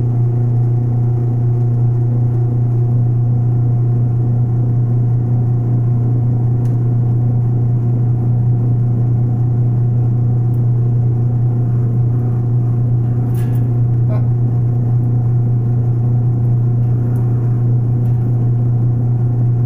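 Small benchtop metal lathe running at a steady speed with a constant low hum, turning down a lead casting.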